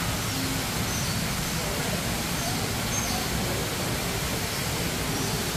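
Steady crowd ambience: a constant wash of background noise with indistinct, faraway voices and no clear single event.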